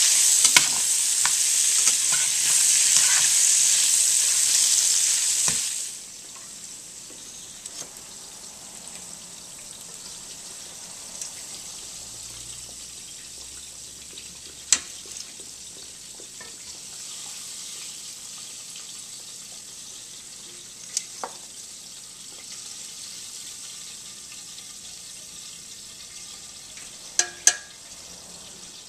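Chopped bacon sizzling loudly in hot grease in a metal skillet as it is stirred, with clinks of a metal spoon against the pan. About six seconds in the sizzle cuts off abruptly, leaving a faint steady hiss with a few sharp clicks.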